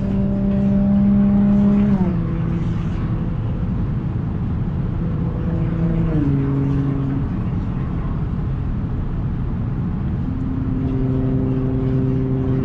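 Audi S4's supercharged V6 through an AWE Touring exhaust, driving with a steady drone. Its pitch steps down twice, about two and six seconds in, then holds a new steady note near the end, over constant road and tyre noise.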